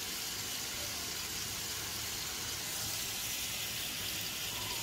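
Steady sizzling hiss of shrimp frying in oil in a pan, then of water boiling around a ceramic sake carafe warming in a pot.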